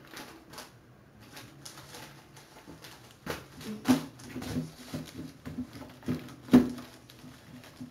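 Plastic lid of a flatbed scanner being handled, with a series of knocks and clicks. The lid bangs open about four seconds in and shuts with the loudest knock about six and a half seconds in, as a document is laid on the glass.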